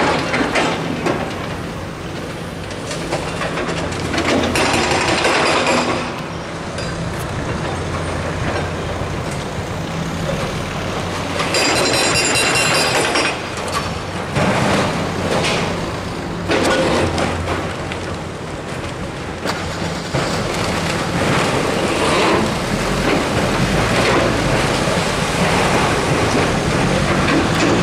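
Demolition site: diesel engines of tracked excavators running steadily as they break up concrete rubble, mixed with street traffic passing. Louder swells of noise come a few times, at about 4 and 12 seconds in and again from about 20 seconds on.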